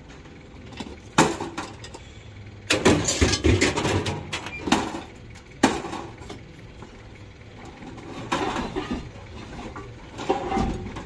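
Scrap metal parts knocking and clattering together as they are shifted and pulled out of a loaded van, in several separate bursts with the longest run of clatter a few seconds in.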